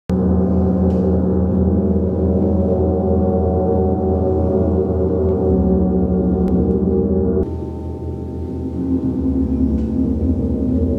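Large hanging gongs played with a mallet, making a loud, sustained wash of many overlapping ringing tones. About seven seconds in, the sound changes suddenly to a quieter, different set of gong tones, which swells back up over the next second or two.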